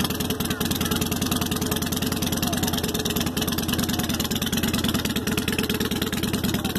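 Harley-Davidson V-twin motorcycle engine running at a steady idle, a continuous even beat of exhaust pulses.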